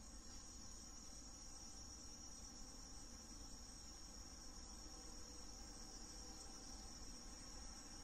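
Faint, steady high-pitched trilling of crickets, unbroken throughout, over a low background hum.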